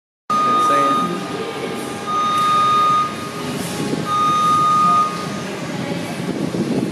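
A machine warning beeper sounds three long steady beeps, each about a second long and about a second apart. Under them runs the steady clatter and hum of a heavy-equipment assembly hall.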